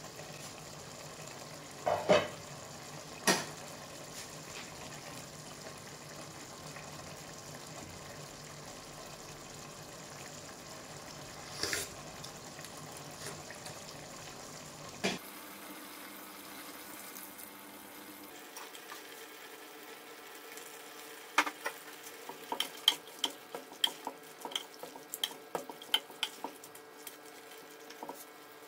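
Kitchen cooking sounds: a steady hiss with a few sharp knocks of a utensil against a pot, about 2, 3 and 12 seconds in. About halfway through the hiss drops away, and near the end comes a quick run of light clinks and taps.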